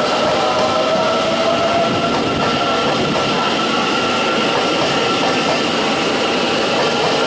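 Taiwan Railway EMU800 commuter electric multiple unit pulling out of the station, its wheels rolling on the rails with a loud, steady rushing noise. A whine rises slightly over the first two seconds, under fainter steady higher tones.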